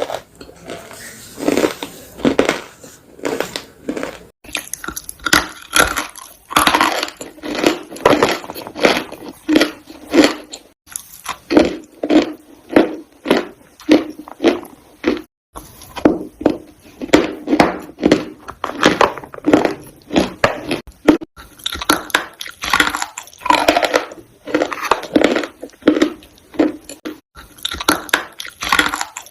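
Dry clay being crunched: a steady run of crisp, crackly crunches, several a second, broken by short pauses twice.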